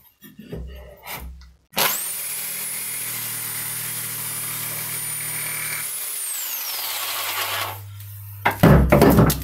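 Fiolent PM4-700E electric jigsaw with a Bosch T101AO blade starting up and cutting steadily through a 30 mm wooden bar, with a high motor whine over the sawing. About six seconds in it is switched off and winds down. A few loud knocks follow near the end.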